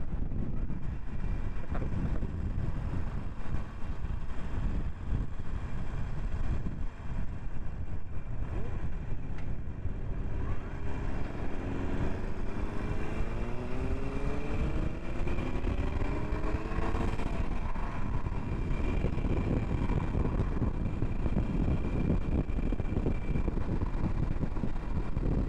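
Motorcycle riding with heavy wind noise on the microphone over the rumble of a 2017 Harley-Davidson Iron 883's air-cooled 883 cc V-twin. About halfway through, the engine note climbs steadily for several seconds as the bike accelerates, then drops away.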